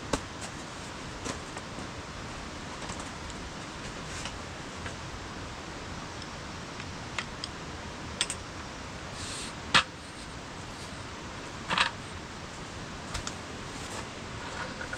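Scattered light clicks and knocks of objects being handled, the loudest about ten seconds in, over a steady even hiss.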